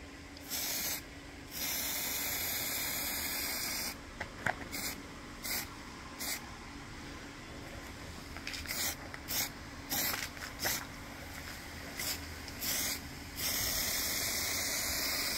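Aerosol spray can of grey primer hissing in on-and-off bursts as it is sprayed onto steel. There are two longer sprays of two to three seconds each, one near the start and one at the end, with many short puffs between them.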